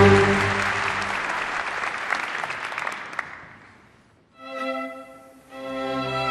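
Audience applause dying away over about three seconds. After a brief hush, an orchestra's bowed strings start to play.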